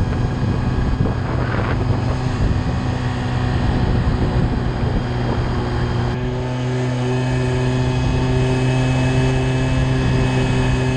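1985 Honda NQ50 Spree scooter's small two-stroke engine running steadily at cruising speed, about 28 miles an hour, its drone evening out a little about halfway through.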